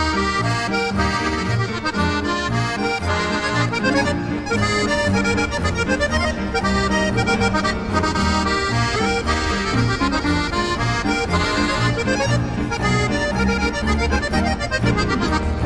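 Accordion music in a traditional folk style, with a steady rhythmic bass under the melody.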